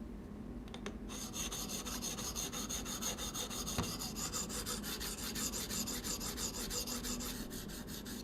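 Diamond sharpening stone on a guided knife sharpener, rubbed in rapid, even back-and-forth strokes along a steel blade's edge: a steady raspy grinding as the bevel is ground to raise a burr. One sharp click near the middle.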